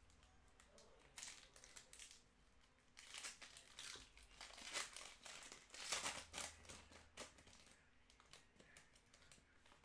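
Faint crinkling and tearing of a foil trading-card pack wrapper being opened by hand, in irregular short rustles that are thickest in the middle of the stretch.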